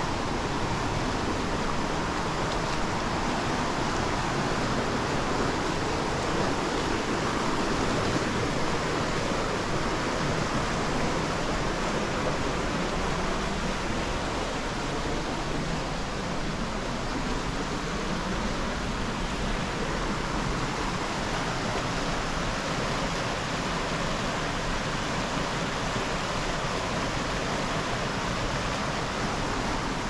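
Steady rush of flowing water from the river and falls, an even hiss that stays level throughout.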